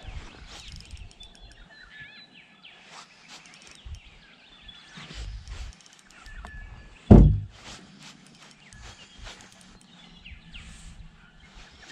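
Outdoor ambience with faint, short bird chirps and scattered small clicks and knocks, broken once, about seven seconds in, by a loud low thump that dies away quickly.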